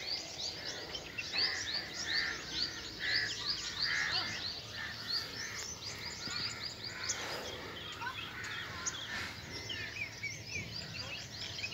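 Many birds chirping together in a dense run of short, quick chirps, with a lower call repeating every second or so in the first few seconds.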